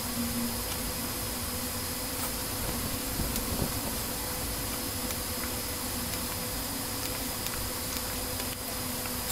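A steady buzzing hum over hiss, with a few faint clicks scattered through it.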